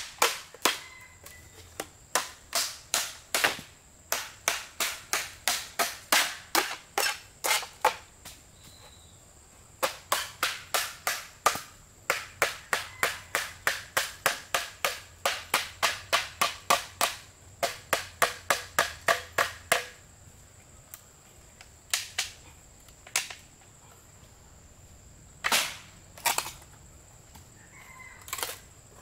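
Repeated sharp blows struck in quick runs of about three a second with short breaks, then only a few single blows near the end.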